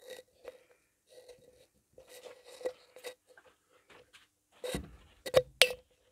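Fluorescent tube light fitting humming steadily, heard in snatches among rustling handling noise. A few sharp clicks about five seconds in are the loudest sounds, as a hand with a cable reaches up to the fitting.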